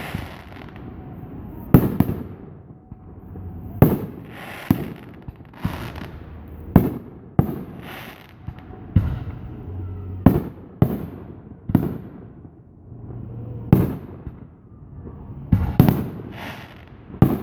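Aerial fireworks bursting: about a dozen sharp bangs at uneven intervals of one to two seconds, each trailing off as it fades.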